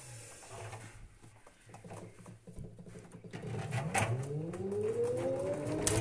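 LG front-load washing machine squealing from its seal as the drum turns: a squeal that dies away at the start, then after a quieter stretch a squeal that rises steadily in pitch from about four seconds in. A low hum and a few sharp clicks run under it.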